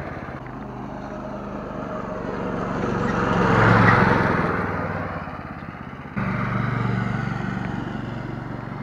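Small petrol engines of rental go-karts running on the track, a steady engine drone that swells to its loudest about four seconds in as a kart passes close, then fades. The sound jumps back up abruptly about six seconds in.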